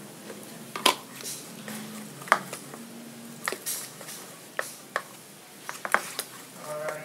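Metal spoon stirring thick, wet egg-and-flour batter in a bowl: a soft squelching, with the spoon clinking sharply against the bowl now and then at irregular intervals.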